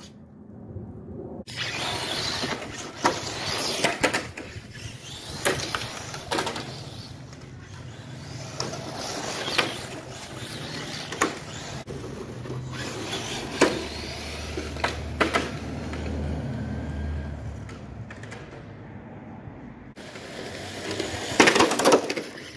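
HSP Flying Fish RC touring car with a brushed 540 motor on a 2S battery, doing a speed run over rough, cracked concrete: the motor and drivetrain whine as it runs, with tyre noise and repeated sharp knocks as it bangs over the cracks and bumps.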